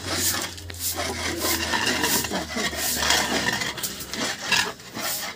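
Irregular scrubbing and rubbing as men wash themselves at an outdoor tap, with short scrapes and knocks, over a low steady hum that fades about three seconds in.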